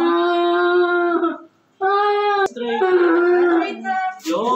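A child's voice wailing in long, held cries on a steady pitch, breaking off briefly about one and a half seconds in, then carrying on in shorter, broken cries.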